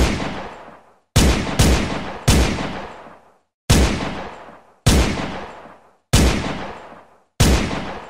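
Glock 17 9 mm pistol firing single shots: seven sharp shots, the first two in quick succession, the rest about a second or more apart. Each shot has an echoing tail that fades over about a second.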